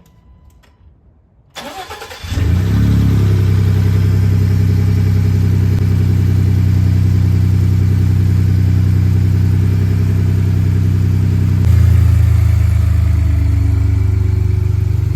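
Ford F-150 pickup engine cranked and starting about two seconds in, then running at a steady idle; near twelve seconds in, the low drone of the idle gets louder.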